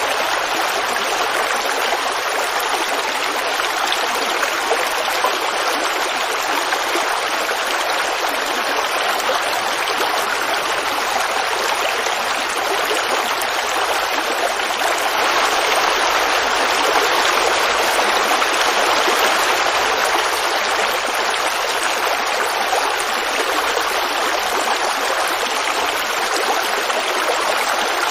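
A forest creek babbling and splashing steadily over rocks, swelling slightly for a few seconds midway.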